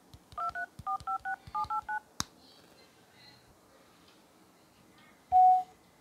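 Samsung Galaxy S7 keypad dial tones: eight short two-note touch-tone beeps in quick groups of two, three and three as digits are pressed, then a sharp click. Near the end comes a single louder, slightly longer beep.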